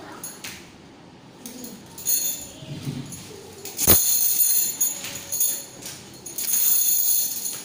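Metal hanging chain and hook of a suspended swing clinking and jingling in repeated bursts as the swing moves, with a sharp clank about four seconds in.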